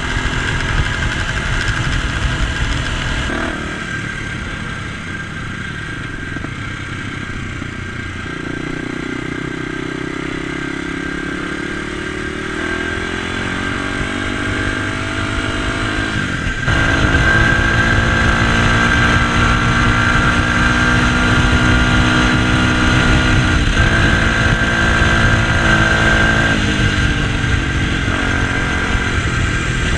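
Dirt bike engine running on the move, its pitch climbing slowly and shifting up and down with throttle and gear changes, louder from just past halfway. Wind rushes over the camera microphone underneath.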